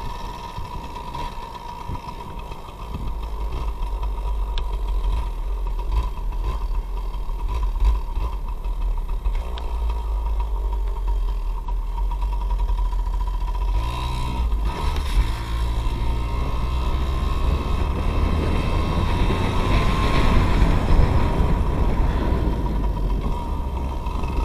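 Yamaha PW80's small two-stroke single-cylinder engine running under a rider on 40:1 premix with its oil injection bypassed, with wind rumbling on the bike-mounted camera's microphone. It gets louder about three seconds in, shifts pitch about halfway through and climbs in pitch again near the end.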